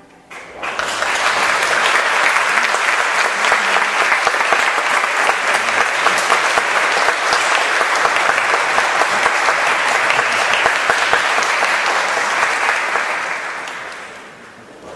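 Audience applauding at the end of a wind band performance. The clapping swells in within the first second, holds steady, and fades away near the end.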